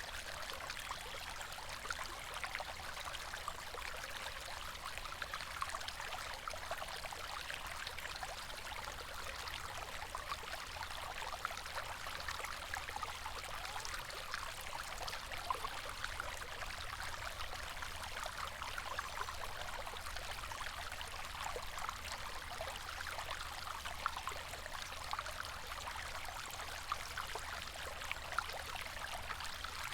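River water flowing steadily, a continuous babbling rush with small splashes and gurgles.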